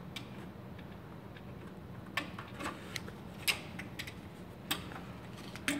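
Aviation snips cutting aluminum fascia: about half a dozen sharp, irregularly spaced clicks as the jaws close on the metal, most of them in the second half.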